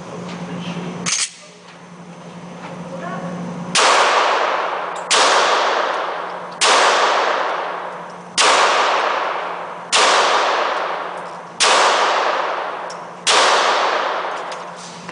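Handgun fired seven times at a steady pace, about one and a half seconds apart, in an indoor shooting range, each shot followed by a long echoing decay. A single sharp click comes about a second in.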